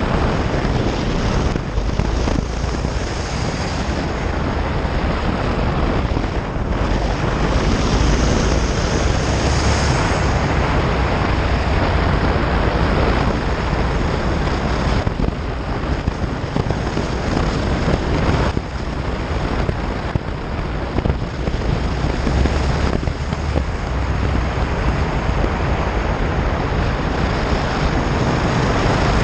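Honda Varadero motorcycle ridden along a gravel road, heard from the bike: wind rushing over the microphone over the V-twin engine and the tyres on gravel. Steady, with a few brief dips in level.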